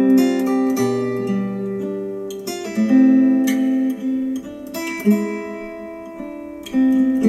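Acoustic guitar music, chords plucked and left ringing, changing every second or so, played back through hi-fi bookshelf speakers.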